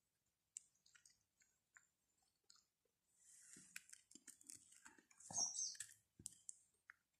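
Faint close-up eating sounds: flatbread torn by hand, dipped in pickle and chewed, with scattered small clicks and a louder stretch of crackle in the second half.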